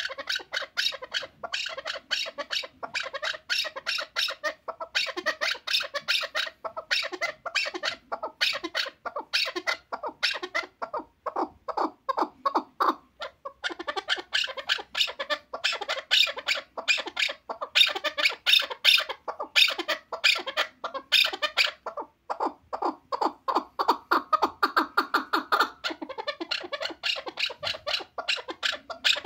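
Chukar partridge calling: rapid runs of short clucking notes, several a second, in phrases of a second or two repeated again and again.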